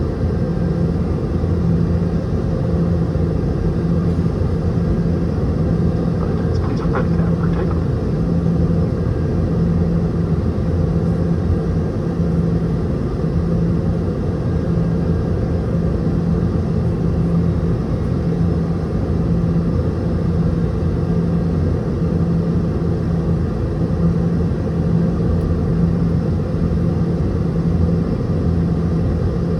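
Steady cabin rumble of a Boeing 717-200's tail-mounted Rolls-Royce BR715 turbofans running at low power, heard from a rear-cabin seat, with a constant low hum that pulses gently. A faint brief rattle about seven seconds in.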